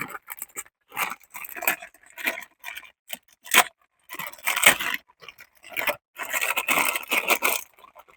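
Packaging rustling, scraping and tearing as a new rear stabilizer link is unpacked, in a string of irregular crinkles and scrapes with short pauses between them.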